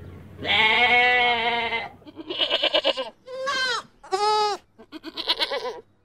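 Goats bleating: one long bleat, then a quavering bleat, two short bleats that fall in pitch, and a last quavering bleat.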